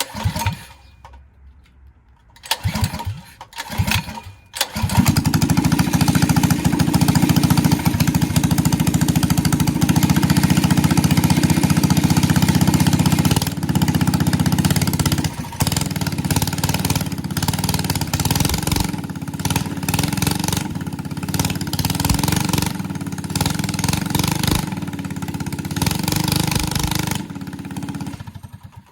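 Engine fitted with a newly installed Mikuni carburetor being started: a couple of short tries, then it catches about four and a half seconds in and runs loudly and steadily, settling a little quieter midway. It tails off and stops near the end. The engine is running well on the new carburetor.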